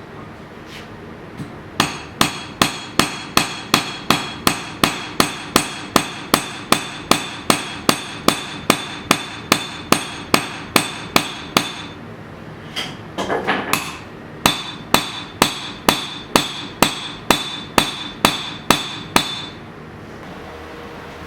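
Hand hammer striking steel on an anvil while forging a knife blade, in a steady rhythm of about two and a half blows a second, each blow ringing. The rhythm breaks off near the middle for a brief scrape and a single knock, then resumes for another dozen or so blows.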